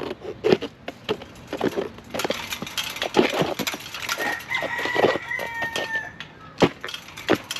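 Wet rubber tire being forced over a small beadlock rim, lubricated with Windex: irregular squeaks, scrapes and knocks as the bead is worked on, with a drawn-out high squeal about halfway through.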